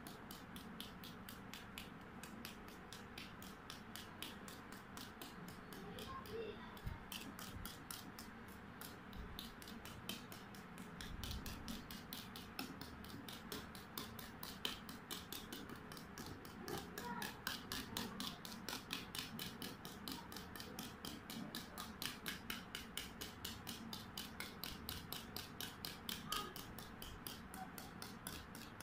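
Small wire whisk beating whipped egg whites and beaten yolks together in a steel bowl: a faint, quick, regular clicking of wire against metal. This is the stage where the two parts are mixed into a cream-like batter for a fluffy omelet.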